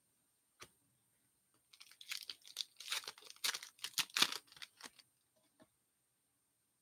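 Foil wrapper of an Upper Deck hockey card pack being torn open and crinkled by hand: a burst of crackling about two seconds in that lasts some three seconds, after a single click near the start.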